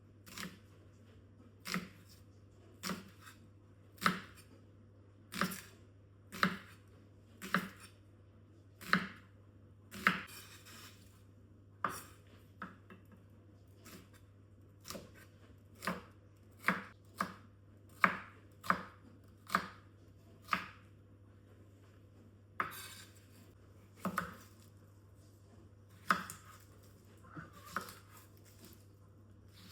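Knife chopping food on a cutting board: single slow cuts, each a sharp knock, about one a second with a couple of short pauses.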